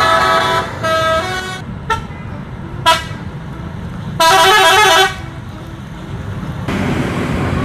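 Buses sounding multi-tone musical horns in a series of short blasts, the longest and most warbling about four seconds in, over the low rumble of bus engines. The engine noise grows louder near the end.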